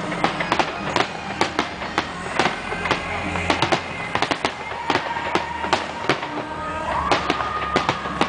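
Aerial fireworks display: shells bursting in a rapid, dense series of sharp bangs, two to four a second, over music playing along.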